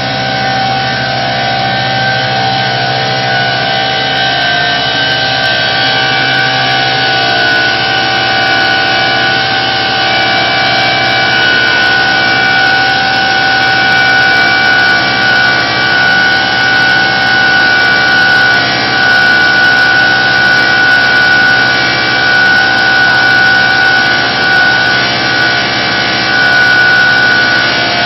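Walinga UltraVeyor UV60 pneumatic grain conveyor running at full load while conveying seed grain: a steady high blower whine over a low motor hum, growing gradually louder.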